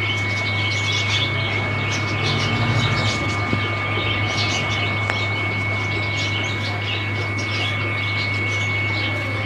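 Steady electric hum of an aquarium air pump, with a faint high whine over a constant hiss.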